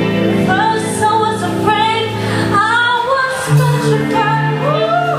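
A woman singing live into a microphone with a band backing her, her voice wavering in vibrato over steady held low notes.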